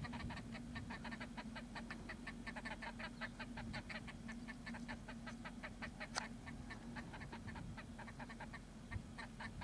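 Birds calling in a fast, even run of short notes, about six a second, over a faint steady hum, with a single sharp click about six seconds in.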